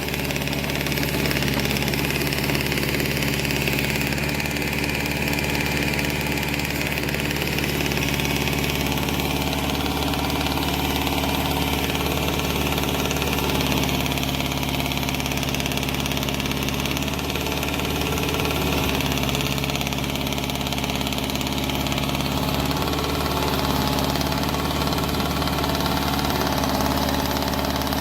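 John Deere 410 backhoe loader's engine idling steadily.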